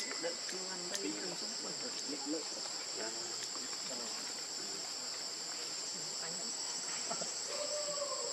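A steady, unbroken high-pitched insect chorus, a shrill trilling drone in two high pitches.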